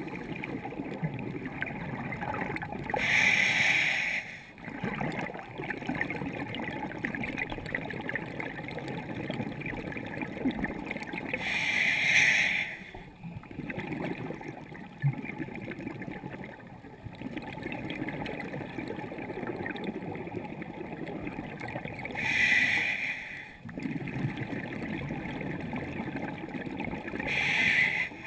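Scuba diver breathing through a regulator underwater: four loud rushes of exhaled bubbles, roughly every six to ten seconds, over a steady low underwater hiss.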